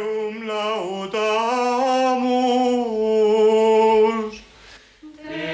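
Voices singing a slow chant without instruments, one long held note that fades out about four seconds in, and a new phrase starting near the end.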